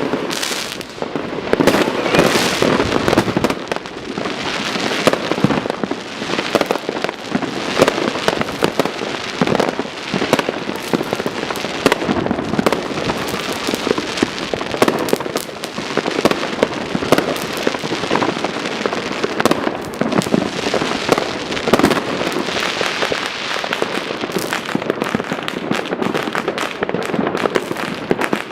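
Many fireworks and firecrackers going off at once: a continuous barrage of overlapping bangs and crackling with no pause.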